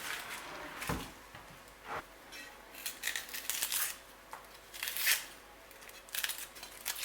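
Dry papery onion skin crackling and tearing as it is peeled off by hand, in short irregular bursts.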